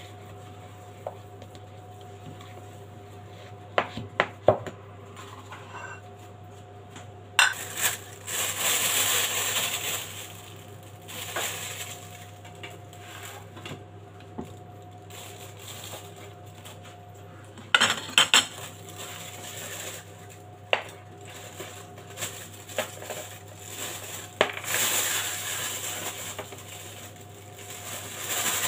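Spatula scraping and knocking against a plastic mixing bowl as butter cookie dough is stirred: a few sharp knocks, with longer stretches of scraping about eight seconds in and again near the end.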